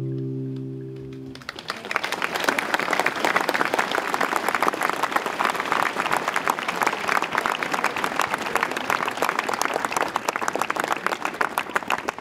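Last acoustic guitar chord ringing out, then a crowd applauding for about ten seconds, the clapping fading away at the very end.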